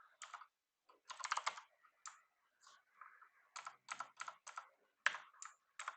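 Computer keyboard keystrokes: a quick run of typing about a second in, then single key presses at a slower, uneven pace, several in a row near the end.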